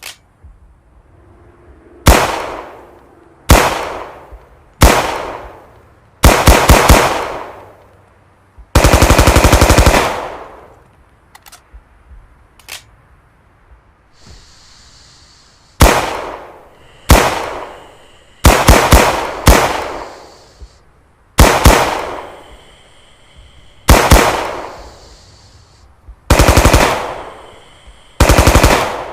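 M1928 Thompson submachine gun (.45 ACP) firing: single shots and short bursts of a few rounds, with one long sustained burst of automatic fire about nine seconds in. Each burst is followed by an echoing tail.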